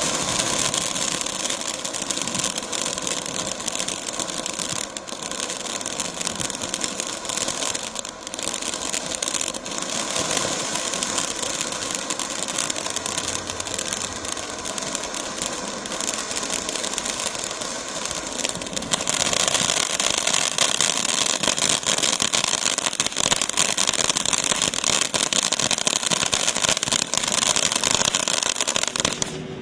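Black Cat Hot Sauce ground fountain firework spraying sparks with a steady hiss and many small crackles. It gets louder and brighter about two-thirds of the way through, then cuts off at the very end as the fountain burns out.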